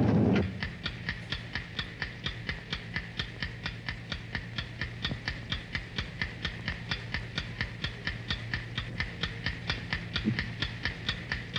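Steady, rapid clock-like ticking, nearly five ticks a second, over a low hum; a loud low rumble cuts off about half a second in.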